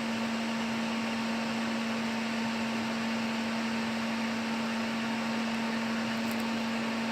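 Electric fan of a homemade solder fume extractor running steadily, a constant motor hum over the rush of air being drawn through it.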